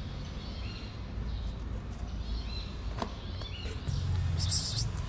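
Small birds chirping in short, repeated curved calls. A sharp click comes about three seconds in, and a brief scratchy rustle near the end is the loudest sound.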